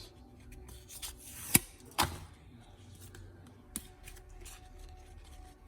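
Hands opening and handling packaging for trading cards: rustling, with two sharp snaps about a second and a half and two seconds in, and a smaller click later.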